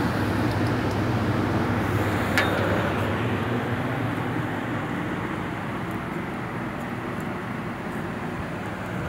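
Smog Free Tower air purifier's ventilation fan running: a steady hum under a rush of moving air, growing a little fainter toward the end. A single sharp click about two and a half seconds in.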